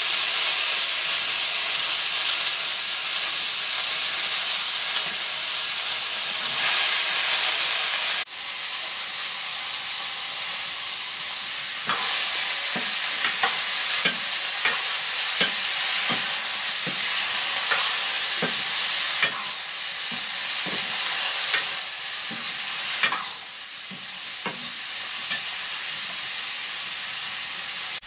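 Sliced vegetables sizzling steadily in an iron wok. Partway through, a steel ladle repeatedly scrapes and knocks against the wok as they are stirred.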